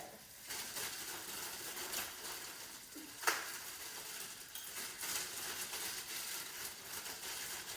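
Rustling of a plastic bread bag as slices are taken out, with a sharp click about three seconds in.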